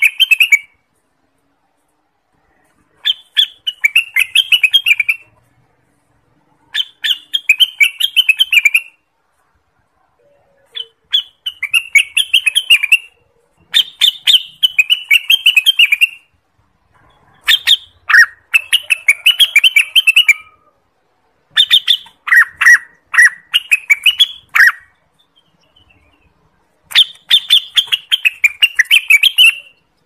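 Orange-spotted bulbul (cucak wilis) singing in repeated bursts of quick chattering notes. There are about seven phrases, each around two seconds long, with short silent gaps between them.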